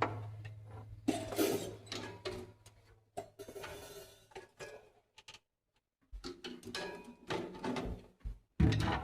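Drum kit left ringing between passages: a low drum tone fades away over the first three seconds, followed by scattered light clicks and knocks. There is a brief silence a little past the middle, then a few soft taps and knocks toward the end.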